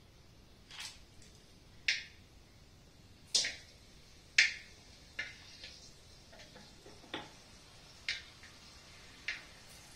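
Whole spices frying in a little hot oil in an aluminium kadai, giving sharp, irregular pops and ticks about once a second. The loudest come a little after three and four seconds in.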